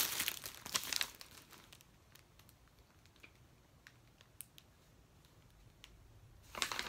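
Clear plastic bag of diamond-painting drill packets crinkling as it is handled for about the first second, then scattered faint ticks and rustles, with another short crinkle near the end.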